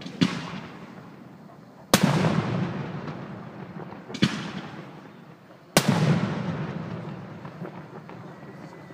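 Aerial firework shells bursting: four sharp bangs about two seconds apart, each followed by a rumbling echo that fades away.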